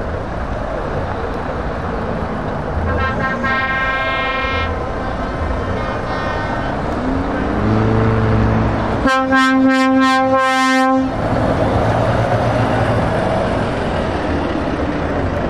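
Heavy trucks rolling slowly past with their diesel engines running. A higher-pitched horn sounds briefly a few seconds in, and about nine seconds in a loud truck air horn blasts for about two seconds.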